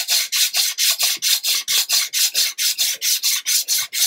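Sanding block rubbed quickly back and forth over the planked wooden hull of a model ship, about five even strokes a second. The sound of fairing the first planking smooth, taking back glue lumps and high plank edges.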